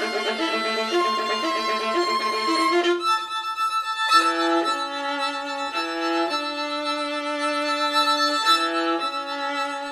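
Violins playing together in a small chamber ensemble: a quick, busy bowed passage for about three seconds, then, after a brief thin moment, slow held chords that change every second or so.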